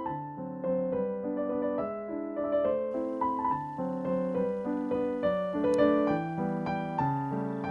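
Background piano music: a gentle melody of single notes and chords following one another at an even pace.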